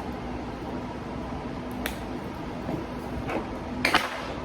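A vacuum-sealed plastic food package being worked open by hand, giving a few short crinkles and snaps, the loudest near the end, over a steady low hum.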